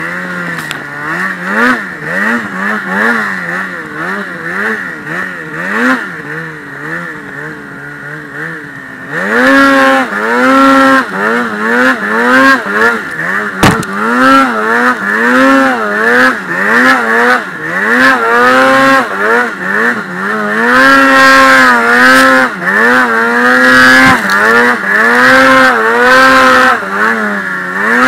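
Polaris Axys Pro RMK snowmobile's two-stroke engine pulling through deep powder, its pitch rising and falling about once a second with the throttle. It runs lower and quieter for the first several seconds, then louder at higher revs from about nine seconds in.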